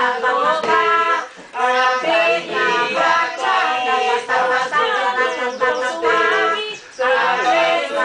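A group of voices singing a lively Portuguese song together to acoustic guitar, in phrases broken by two brief pauses, about a second and a half in and near the end.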